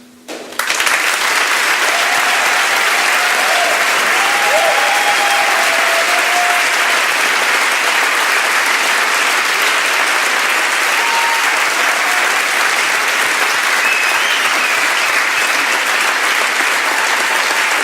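Audience applauding steadily, breaking out about half a second in as the song's last note fades, with a few shouts of cheering above the clapping.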